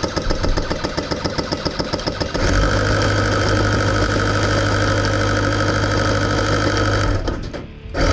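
Airsoft guns firing full auto. First comes a rapid, even run of shots. About two and a half seconds in, the electric Classic Army M133 micro gun takes over with a steady motor whir for about five seconds as it spins its barrels and sprays BBs, then cuts off suddenly, with one short burst near the end.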